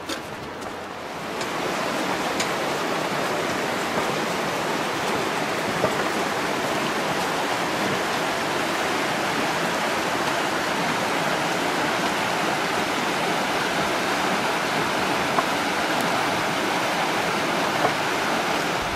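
Rushing water of a stream, a steady full rush that grows louder about a second and a half in and then holds level.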